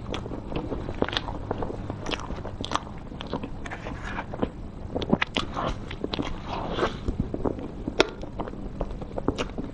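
Close-miked eating of a cream cake with chocolate cookie crumbs: chewing and wet mouth sounds with many short sharp clicks. A metal spoon scrapes the plate partway through.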